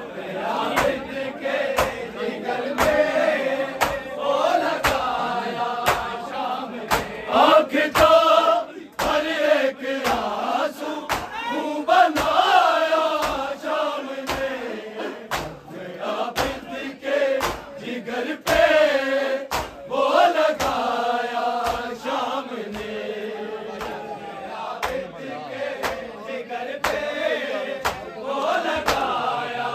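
A group of men chanting a noha, a Shia mourning lament, in unison. Steady rhythmic chest-beating (matam) keeps the beat.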